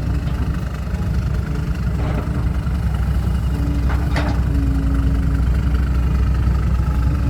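Diesel dump truck engine running at low, steady revs, with a deep rumble and a steady hum. It grows a little louder over the stretch.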